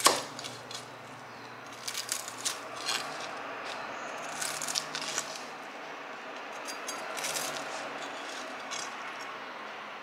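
Kitchenware being handled: short bursts of clinks, rattles and scrapes, a cluster every couple of seconds, over a steady hiss.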